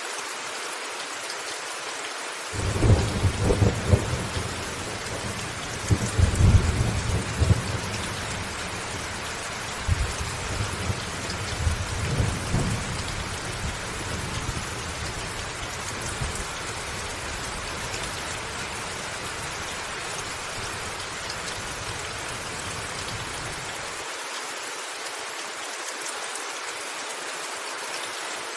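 Steady heavy rain with a thunderclap a few seconds in, a second loud peak soon after, then a long rolling rumble with smaller swells. The low rumble stops abruptly near the end while the rain carries on.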